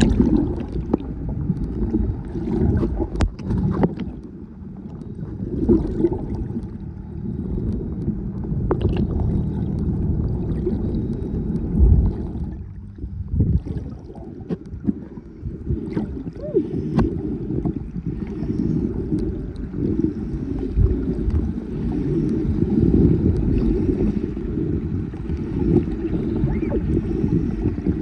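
Muffled underwater noise heard through a camera's waterproof housing: an uneven low rush of moving water with scattered clicks and gurgling bubbles.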